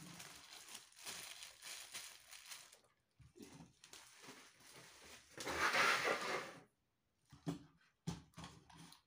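Plastic wrapping crinkling and rustling as it is handled, with a louder burst of crinkling about six seconds in and a few short knocks near the end.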